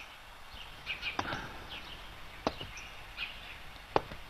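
Small birds chirping in short, high calls, with a few sharp taps, about one at a time, at roughly one, two and a half and four seconds in.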